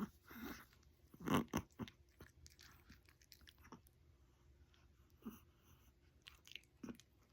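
A Chihuahua sneezes sharply about a second in. A few faint short clicks and snuffs follow.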